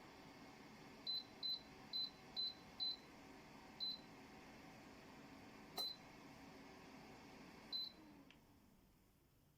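Electric fan heater running with a faint steady hum while its control panel beeps at button presses: five quick beeps, then three single beeps a second or two apart, one of them with a click. Near the end the fan's hum fades away.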